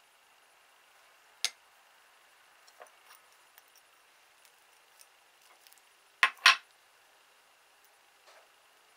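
Crockery being handled: a sharp clink about a second and a half in, a few faint taps, then two loud clinks close together a little past six seconds in, as of a small plate knocking on a hard surface.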